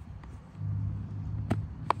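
A low, steady motor hum starts about half a second in, with two sharp clicks near the end.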